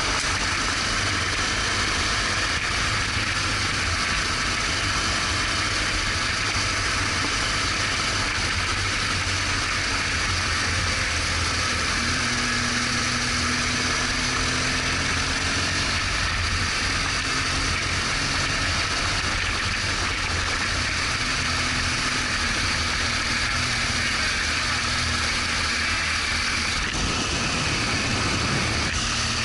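BMW R1200GS Adventure's boxer-twin engine running steadily under way, under a constant hiss of wind and tyre noise.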